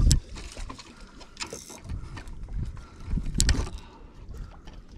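Spinning fishing reel being wound, a run of irregular mechanical clicks, with low knocks and thumps that are loudest at the start and about three and a half seconds in.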